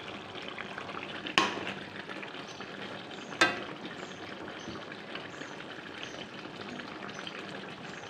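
Chicken curry sizzling in a metal pan while a metal spatula stirs the fried potatoes into the gravy. The spatula knocks sharply against the pan twice, about two seconds apart.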